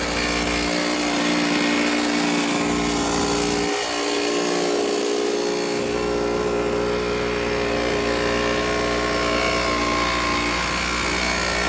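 X3 pocket bike's small two-stroke engine running at high, fairly steady revs.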